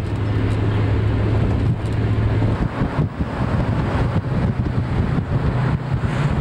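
Car driving, engine and road noise heard from inside the cabin, with wind on the microphone. The steady low engine hum shifts about two and a half seconds in.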